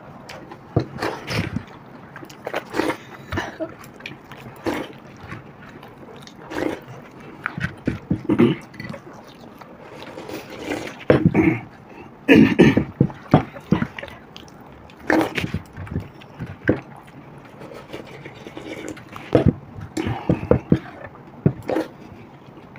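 Two people eating watered rice (pakhala) by hand: irregular wet chewing and slurping, fingers scraping rice across plates, and gulps of water from a glass around the middle.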